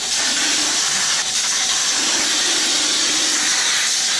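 Plasma torch on a CNC cutting table cutting steel plate: a loud, steady hiss of the arc and air jet.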